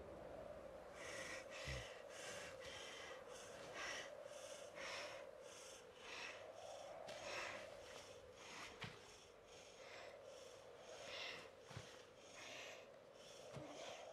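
Faint, quick breathing in short puffs, about two a second, over a low steady hum.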